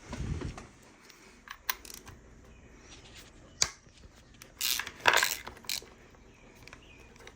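Hand tools and small metal engine parts clinking: a few sharp metal clicks, then a louder clatter about five seconds in, as the front of a Ford 5.4 3V engine is unbolted.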